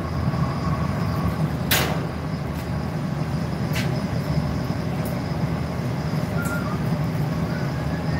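Steady low roar of a glassblowing studio's gas-fired furnace and glory hole burners, with a couple of sharp clicks from tools.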